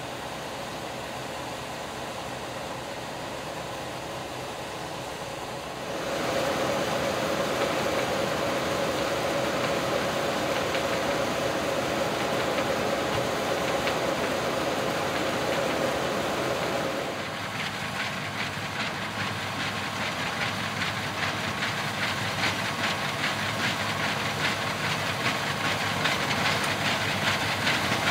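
1983 New Holland combine harvester running, its Fiat diesel engine and threshing machinery making a steady mechanical din. It gets louder about six seconds in, and in the second half a rapid clatter runs through it.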